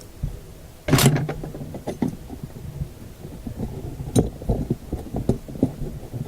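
Hands handling small parts on a workbench: a loud scrape or clatter about a second in, then a run of light clicks and knocks.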